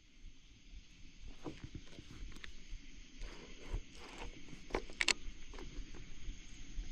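Scattered knocks, clicks and rustles of a landed catfish and gear being handled in a kayak, over a steady faint high hiss.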